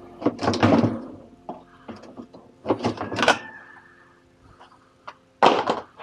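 A washing machine's loose outer tub being pushed and shifted by hand, scraping and knocking against the cabinet in three rough bursts, the last near the end.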